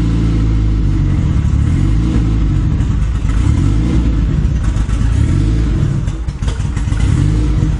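Mitsubishi Lancer turbocharged DOHC engine running, steady at first, then uneven and wavering in pitch from about a second in, with a brief dip around six seconds. The car is described as having a turbo problem.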